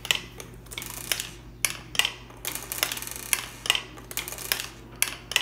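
Marbles rolling down a wooden marble timer's zigzag ramps, clicking against the wood and against each other in irregular sharp taps, about two or three a second, as they drop one by one to the bottom.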